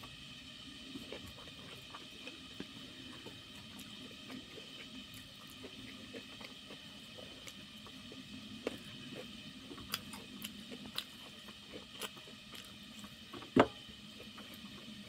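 Fingers mixing rice and curry on a steel plate: soft squishing with small scattered clicks against the metal, and one sharp knock, the loudest sound, about thirteen and a half seconds in.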